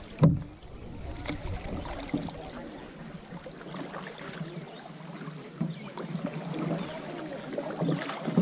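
Kayak moving on a river: water splashing and dripping from paddle strokes, with a few short knocks on the plastic hull. The sharpest, loudest knock comes just after the start.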